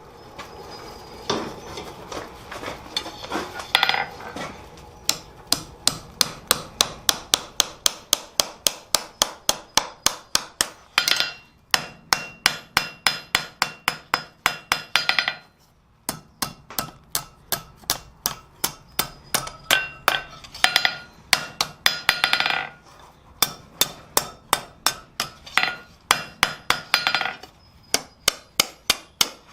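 Blacksmith's hammer striking hot steel on an anvil, about three blows a second with a ringing note on each strike, drawing the stock out thinner. There is a short pause about halfway through before the hammering resumes.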